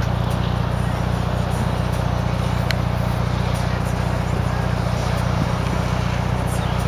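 A car engine idling steadily close by, with a few faint clicks over it.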